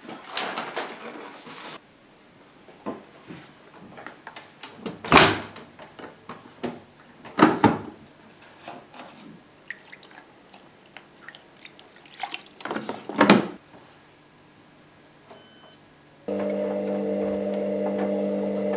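Kitchen clatter: a run of knocks and clunks as things are handled and set down, three of them louder. Near the end a short beep, then a microwave oven starts running with a steady hum.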